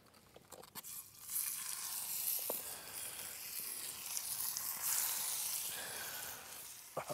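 Nutria legs searing in hot oil in cast-iron pans. The sizzle starts about a second in as the meat goes into the pans and holds steady, with a few light clicks before it.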